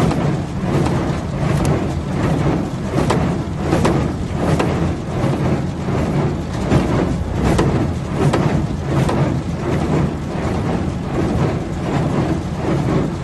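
Claas Dominant square baler running, its mechanism clattering with irregular sharp knocks over the steady rumble of the tractor driving it.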